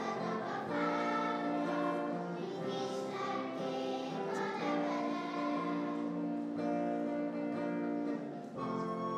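Children's choir singing a slow song in long held notes.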